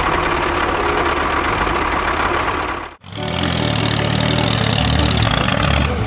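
Tractor engine running steadily. It breaks off abruptly about three seconds in, and a lower-pitched engine sound takes over.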